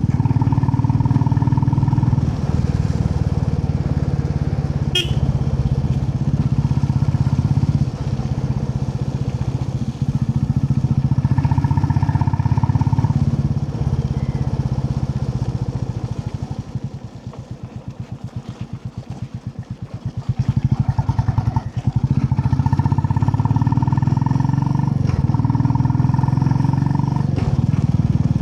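Royal Enfield Classic 350's single-cylinder engine running as the motorcycle rides along. Midway the engine eases off for a few seconds, its separate beats heard at low revs, then picks up again.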